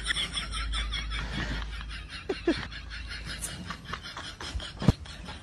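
Quiet snickering laughter in quick short breaths, with a couple of brief rising voiced squeaks about two seconds in.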